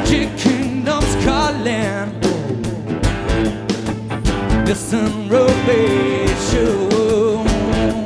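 Live rock band playing: strummed acoustic guitar, electric guitar and a drum kit, with a man's sung vocal line over them.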